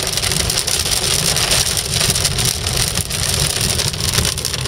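A gully washer: heavy rain pounding on a moving car's roof and windshield, heard from inside the cabin as a loud, steady hiss over a low road and engine rumble.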